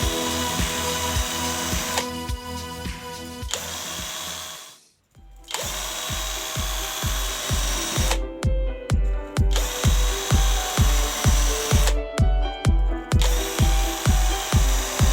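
Background music with a steady thumping beat over the continuous sound of a power tool running. Both cut out briefly about five seconds in.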